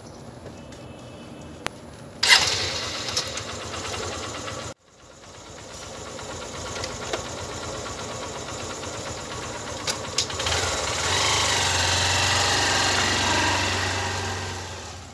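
Motorcycle engine starting about two seconds in and then running, getting louder from about ten seconds as the bike pulls away and fading near the end.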